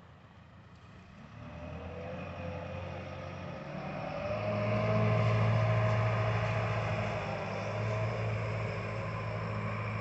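A motor vehicle on the road, growing louder over the first five seconds or so, then holding steady with a low hum.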